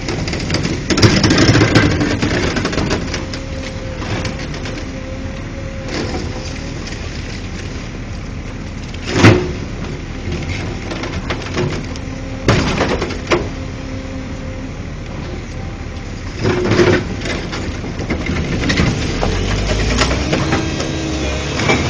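Heavy hydraulic excavator running steadily on demolition work, with several sharp crashing impacts of debris, the loudest about nine seconds in and others around thirteen and seventeen seconds.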